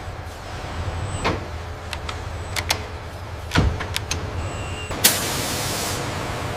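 Factory machinery with a steady low hum and a few sharp mechanical clicks and knocks. About five seconds in, a hiss starts abruptly, strong for about a second and then carrying on more softly.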